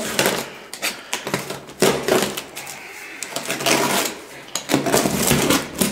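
A cardboard shipping box being cut open with a box cutter: packing tape slit and cardboard flaps pulled apart, with scraping and a run of short clicks and knocks.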